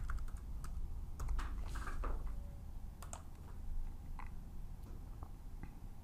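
Light, irregular taps of computer keyboard keys, about a dozen spread over several seconds, as a password is typed and entered.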